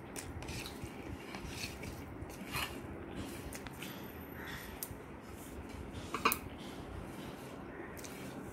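Dishes and cutlery on a dining table, with scattered light clinks and knocks and one sharper knock about six seconds in.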